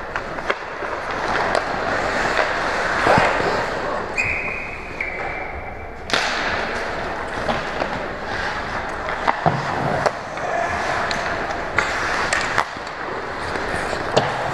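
Ice hockey play heard close up from behind the net: skate blades scraping and carving the ice, with scattered sharp clacks of sticks and puck. A steady high tone sounds for about two seconds around four seconds in.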